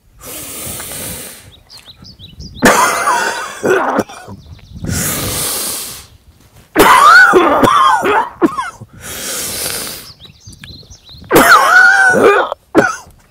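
A man's deliberate self-CPR (cough CPR) routine: three rounds of a long, deep in-breath followed by loud, forceful coughing driven from the stomach.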